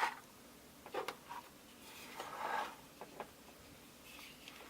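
Faint handling of small plastic toy parts: a few light clicks and a soft rustle.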